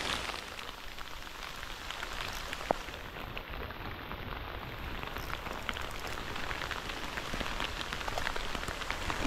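Heavy rain falling steadily, an even hiss with many separate drop ticks, and one sharper click a little before three seconds in.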